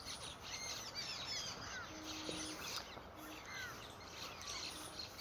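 Birds chirping faintly in the background: many short, falling chirps scattered throughout.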